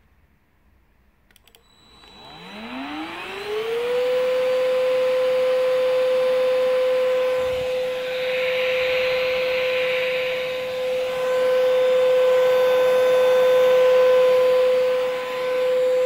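Hoover Rhapsody cordless stick vacuum switched on with a click, its motor whining up in pitch over about two seconds to a steady high whine with a rush of air. It keeps running without the safety cut-out stopping it, the suction hiss swelling briefly about eight seconds in as the nozzle works over sofa fabric.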